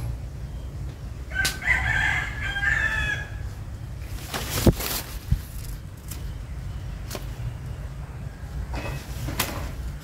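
A rooster crowing once, starting about a second and a half in and lasting about two seconds. Two sharp knocks follow around the middle, with a few fainter taps later, over a steady low rumble.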